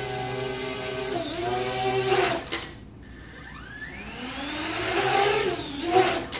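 Small quadcopter drone's propellers whining steadily in flight. The pitch dips and rises again, then the motors cut out with a click as it lands, about two and a half seconds in. About a second later the motors spin up again with a rising whine, fall back and stop sharply near the end.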